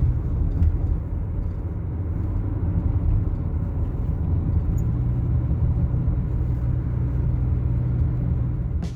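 Car driving on the road, a steady low rumble of engine and tyre noise heard from inside the cabin.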